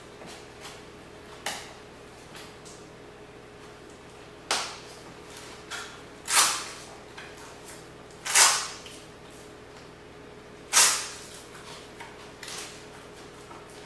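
Nylon pouch and webbing being handled while a magazine pouch is fitted to a plate carrier: a series of short scraping rasps of fabric and straps, the loudest about six, eight and eleven seconds in, over a faint steady hum.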